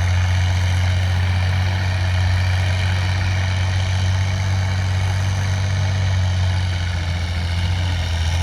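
Competition trial truck's engine running steadily at a constant low speed, a deep even hum with no revving.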